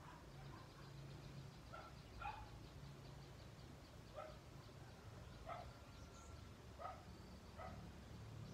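Faint dog barking: about six single barks at uneven spacing, a second or so apart, over a low steady rumble.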